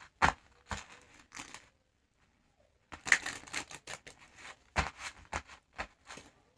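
A deck of tarot cards being shuffled by hand: irregular snaps and rustles of card against card, a pause of about a second, then a denser run of shuffling.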